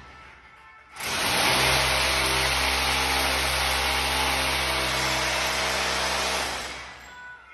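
Handheld electric power tool running steadily. It is stopped for about the first second, starts again and runs for about five seconds, then winds down near the end.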